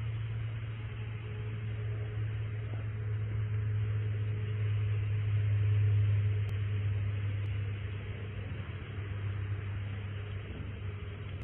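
Vehicle engine idling, a steady low hum that swells to its loudest about halfway through, then eases.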